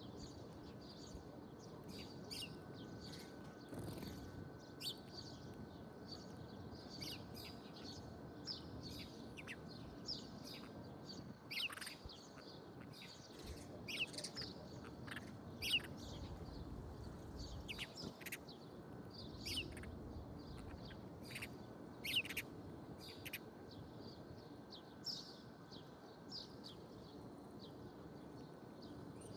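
Songbirds chirping: many short, high calls and quick falling whistles, scattered irregularly, over a faint low rumble.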